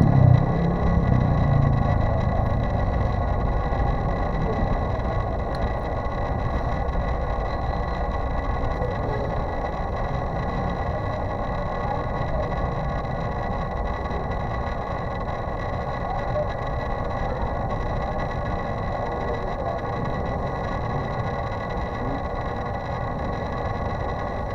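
A steady motor drone with several constant high-pitched whines over a low rumble, easing slightly in loudness over the first few seconds.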